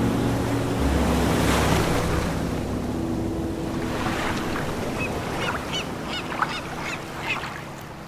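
Ocean surf washing in a steady rush that swells about a second in, over soft held background music. From about halfway, a bird chirps in short repeated calls.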